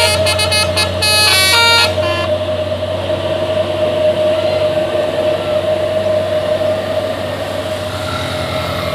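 A bus's DAV musical air horn playing a telolet basuri tune as quick stepped notes, then stopping about two seconds in. A steady vehicle drone continues after it.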